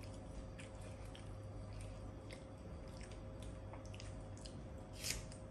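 A person eating biryani by hand: soft wet squishing and chewing with scattered small clicks of fingers and food against the plate, over a steady hum. One sharper click comes near the end.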